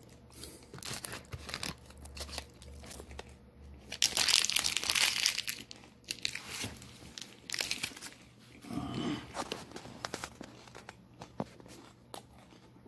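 Foil-lined granola bar wrapper crinkling and rustling as it is handled, in crackly bursts, loudest for about two seconds in the middle.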